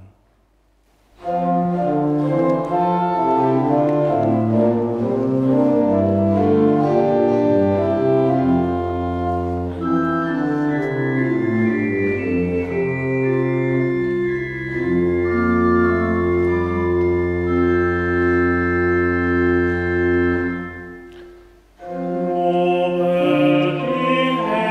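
Church organ playing slow, sustained chords. It starts about a second in, holds a long final chord that fades out near the end, and starts up again about a second later.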